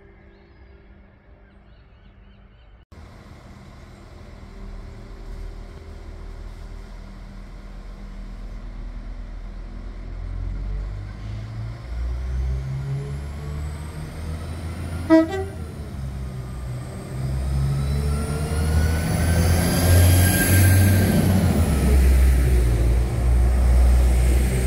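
Northern Class 195 diesel multiple unit approaching through the station: its diesel engines grow steadily louder, their note stepping, with a transmission whine that rises and then falls. Its horn gives one brief toot about fifteen seconds in.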